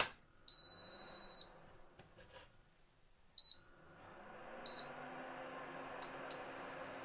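Touch controls of an electric cooktop beeping: a click, one high beep lasting about a second, then two short beeps. About four seconds in, a steady fan-like hiss with a low hum starts as the cooktop comes on.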